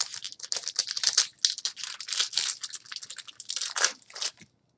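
Wrapper of a 2015 Platinum football card pack being torn open and crinkled: a dense run of crackling that stops about four and a half seconds in.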